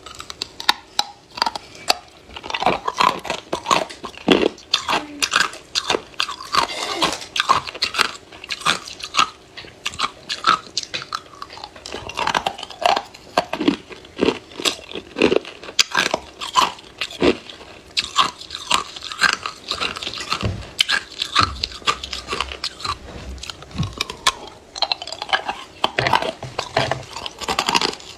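Ice being bitten and chewed close to the microphone: a continuous run of sharp, irregular crunches and cracks.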